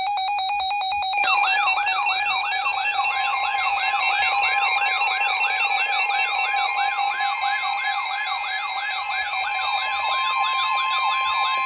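Many NOAA weather radios sounding their alert alarms at once for a warning. Rapidly pulsing electronic beeps are joined, a little over a second in, by a warbling siren-like alarm sweeping about two to three times a second. From about three seconds in, the broadcast's steady 1050 Hz warning alarm tone runs under them.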